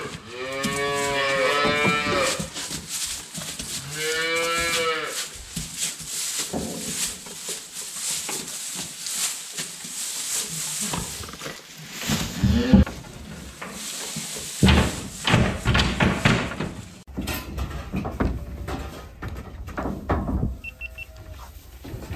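Cattle mooing: two long moos in the first five seconds, each rising and falling in pitch. Then come scattered rustling and knocks, with a run of louder knocks and clatter in the second half.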